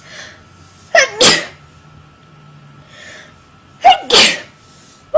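A woman sneezing twice, about a second in and again about four seconds in. Each sneeze is a sharp catch followed by the main loud burst, and a third sneeze begins at the very end.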